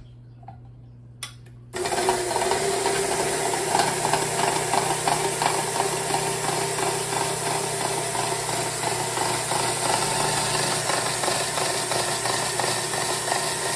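A click, then about two seconds in a KitchenAid stand mixer starts and runs steadily, its motor driving a coarse shredding cone attachment that grates a potato pushed down the feed chute.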